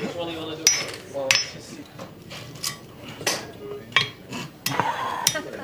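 A series of sharp clinks and knocks, like objects being handled and set down, about seven spread across a few seconds, with faint voices.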